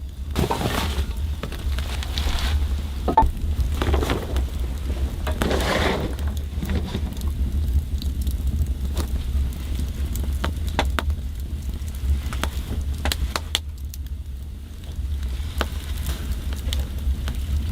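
Camping gear being handled and set down: rustling with scattered clicks and taps, over a steady low rumble. The rustling is heaviest in the first six seconds.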